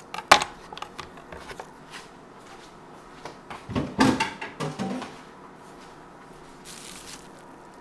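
Kitchen knife and wooden cutting board being cleared off a granite countertop: scattered knocks and clatter, a sharp one about a third of a second in and a busier cluster of knocks around four to five seconds, then a brief soft hiss near the end.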